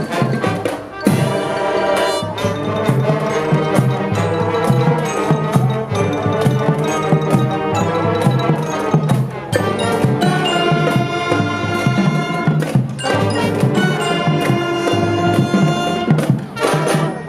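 Marching band playing, with saxophones and brass carrying the music over marching drums and frequent drum hits.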